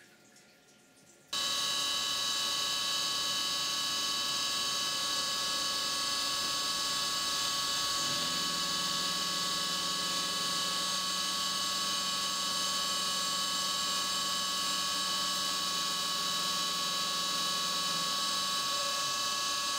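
CNC milling machine's spindle running with flood coolant spraying as an end mill makes light flattening passes in a steel part. It starts suddenly about a second in as several steady high tones over a hiss, and a lower hum joins about eight seconds in and stops near the end.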